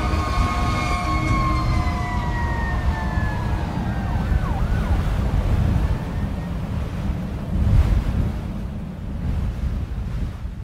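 Fire engine siren winding down, its pitch falling slowly over the first four seconds or so, over a steady low rumble that runs on until it fades out at the end.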